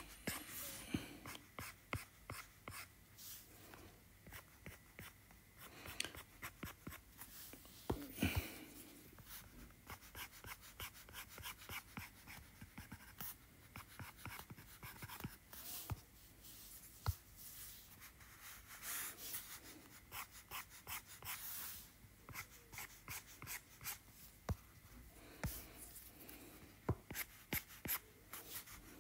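Stylus drawing on an iPad Pro's glass screen: quick ticks of the tip and short scratchy strokes, faint.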